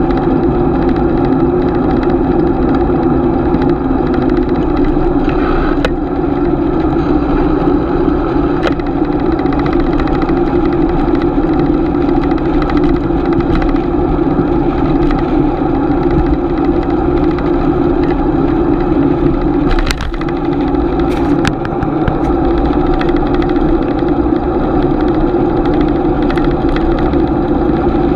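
Steady riding noise of a bicycle, picked up by a GoPro on the ride: tyre and wind noise with a constant hum, and a few sharp clicks along the way.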